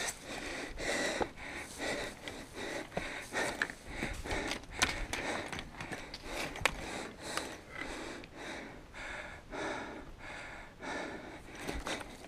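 A climber's heavy, rapid breathing close to the microphone, a quick puff after puff, with a few sharp clicks from loose slate stones and the steel chain under his hands and feet.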